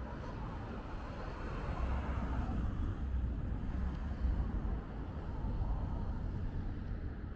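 Street ambience with a car driving by on the road, its tyre and engine noise swelling and fading, over a low wind rumble on the microphone.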